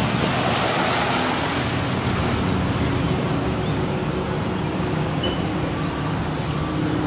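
Steady wind noise buffeting the microphone, a constant rushing hiss, with a faint steady low hum underneath.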